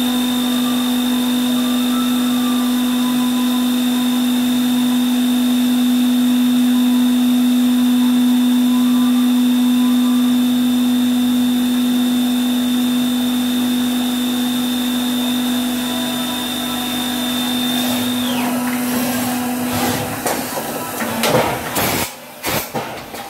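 The spindle of a 5-axis vertical machining centre runs with a steady hum and a high whine. About 18 seconds in, the whine falls away as the spindle winds down, and the hum stops soon after. A few sharp knocks and clatters follow near the end.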